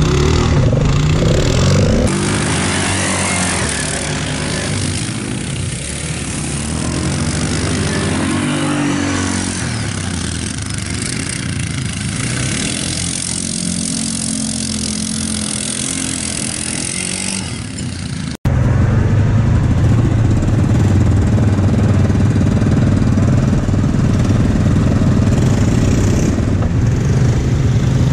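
ATV engines running: first a close quad idling, then about two seconds in a more distant quad revving up and down as it spins through wet sand, and for the last third a steady, close engine note from a quad being ridden.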